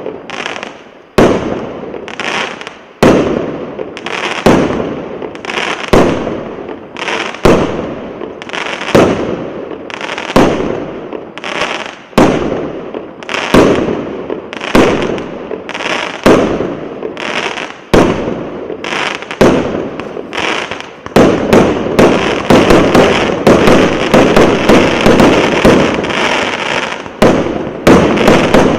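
Firework battery (the 'Kremlevsky' BSP0803612 cake) firing shot after shot, each a sharp bang with a fading rumble, about one every second and a half. About two-thirds of the way in, the shots speed up to several a second in a dense finale-like run.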